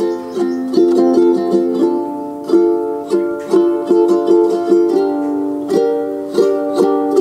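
Background music: a light plucked-string tune, its notes struck a few times a second.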